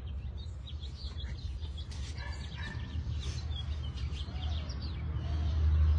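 Labradoodle puppy whining in many short, high-pitched squeaks while held on its back in the restraint test, over a steady low rumble that grows louder near the end.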